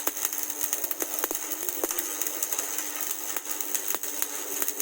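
Stick welding arc crackling and sizzling steadily with irregular sharp pops over a steady low hum, as the electrode runs a bead filling a V-groove in mild steel.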